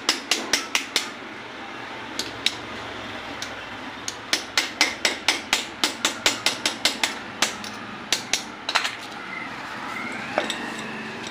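Rapid metal-on-metal hammering on a moped's front shock absorber tube, about four sharp blows a second in several runs with short pauses, as the old oil seal is knocked out.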